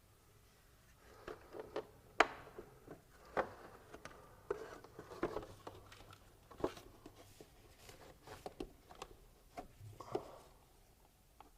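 Scattered light clicks and taps of an Allen key and small bolts as the bolts holding a BMW's plastic spark plug cover are worked out by hand. The sharpest click comes a little over two seconds in.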